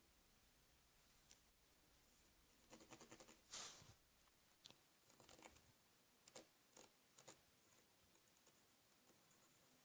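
Faint scratching of a drawing tool on paper: a cluster of quick strokes with the loudest about three and a half seconds in, then single strokes spaced out until about seven seconds in.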